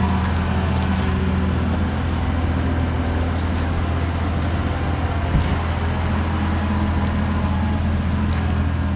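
Steady running noise of a road vehicle in motion: a low hum with road rumble, and a single short knock about five seconds in.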